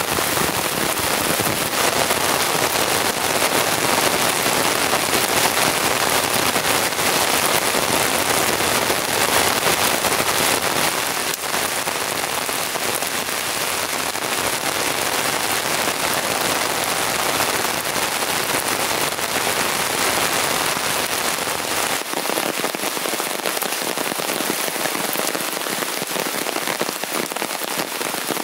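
Heavy downpour of rain falling steadily, spattering on the ground and the tent fabric.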